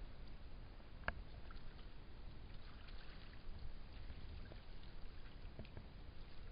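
Faint lapping and trickling of shallow water over stones, over a steady low rumble, with small scattered ticks and one sharp click about a second in.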